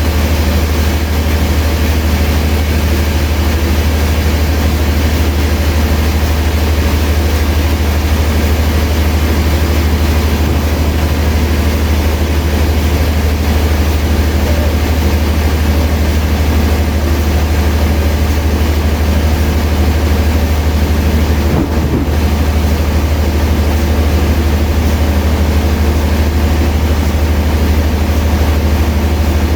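Sawmill machinery running steadily, a loud constant low drone, with one brief dip about three-quarters of the way through.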